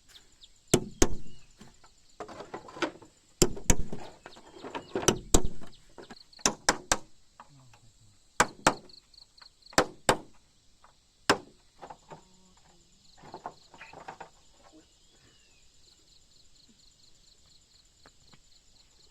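Irregular sharp knocks and thuds, often in pairs, about fifteen in the first twelve seconds, then fainter handling sounds. Insects chirp steadily in the background.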